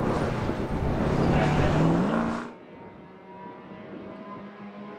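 Race car engine running loud as the car passes close by on the track, its pitch rising just before two seconds in. About halfway through it cuts off suddenly, and the fainter, steady engine note of a car lapping in the distance takes over.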